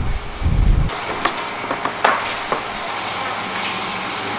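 Wind buffeting the microphone for about the first second, then a sudden change to a steady hiss with a few light clicks and taps.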